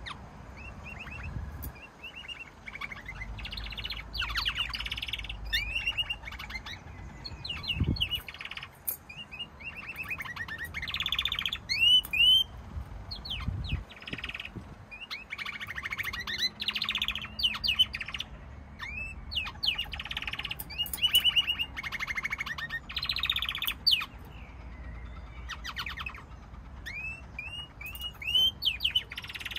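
Pet canaries singing almost without pause: long, fast trills and runs of quick repeated chirps, with many short rising notes.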